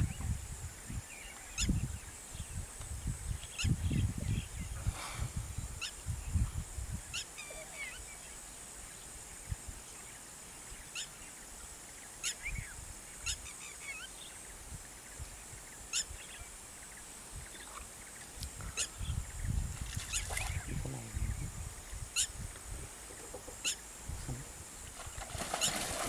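Outdoor wildlife ambience: wild birds giving short, scattered chirps and calls over a steady high hiss, with irregular low rumbles.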